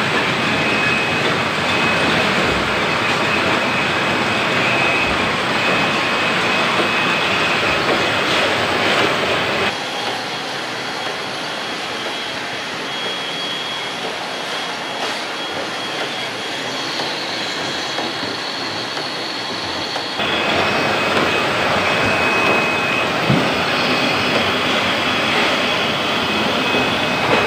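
Drinking-water bottling line running: conveyors and filling and capping machinery give a steady clattering noise with a thin high whine. The noise drops and thins abruptly about ten seconds in, then returns just as suddenly about ten seconds later.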